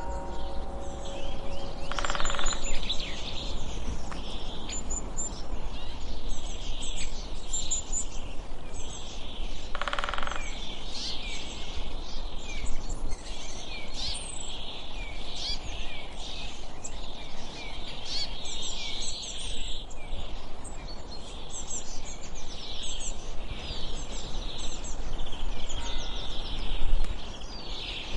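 Forest ambience of many small birds chirping and singing over a steady low rumble.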